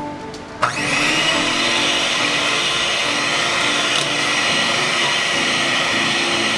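Small electric kitchen appliance motor switching on about half a second in, spinning up quickly and then running steadily at high speed, mixing the avocado ice cream base.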